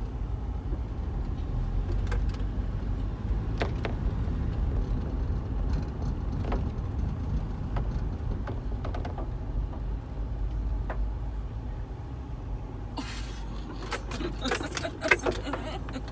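Car driving slowly, heard from inside the cabin as a steady low road and engine rumble with occasional clicks. Near the end comes a quick flurry of sharp rattles and clicks, the loudest a second or so before the end.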